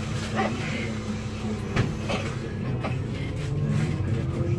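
Solaris Urbino 8.9LE city bus heard from inside: the engine idling, with a few knocks and clunks in the cabin. Near the end the engine note starts to rise slowly as the bus pulls away from the stop.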